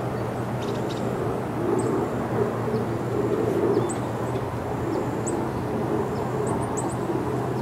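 Honeybees buzzing around an opened hive: a steady, wavering hum, with a few faint high bird chirps above it.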